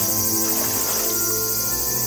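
Background music with held, steady notes, over a continuous high-pitched chorus of insects.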